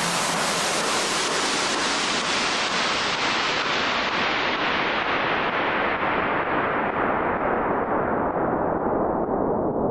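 A steady hiss of noise that grows duller as its high end is filtered away, a falling filter-sweep effect in electronic dance music backing.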